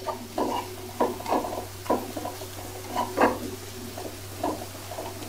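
Wooden spatula stirring and scraping onion-and-spice masala frying in oil in a nonstick kadai, one stroke about every second, over a faint sizzle and a steady low hum.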